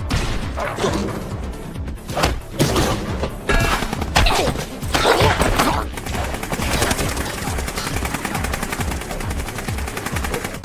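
Anime battle sound effects: gunshots and hard impacts over background music, turning into a long rapid burst of machine-gun fire about six seconds in.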